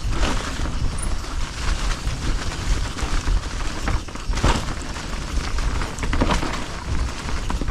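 Mountain bike riding down a forest trail, its tyres rolling and crackling over leaves and twigs, over a steady low rumble.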